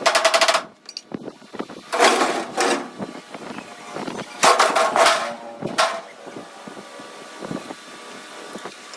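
Stick (arc) welding crackle in four short bursts of under a second each, the last the briefest.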